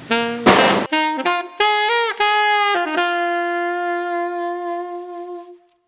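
Solo saxophone background music: after a short burst of noise near the start, a quick run of notes, some of them bent, ends on one long held note that fades out shortly before silence.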